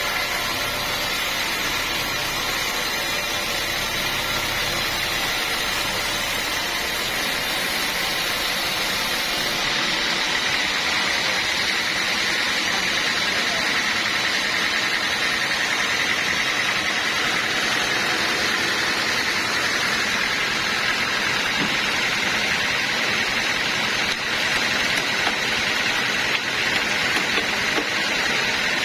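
Sawmill machinery running steadily with a continuous noise, its low end dropping away and the sound changing about ten seconds in.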